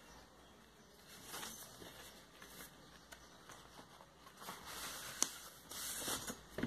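Handling noise of a vinyl LP record: the shrink-wrapped cardboard jacket rustling and scraping as it is turned over, with a sharp click about five seconds in, then the paper inner sleeve sliding out of the jacket near the end.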